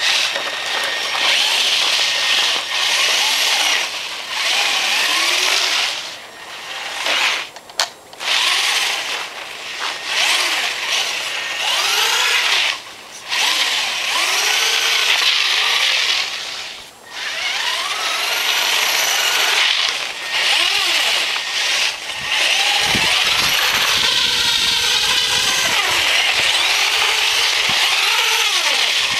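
Electric motor and drivetrain of a Traxxas Stampede RC truck whining as it drives on snow. The pitch rises and falls with the throttle, and the sound drops out briefly several times when the throttle is let off.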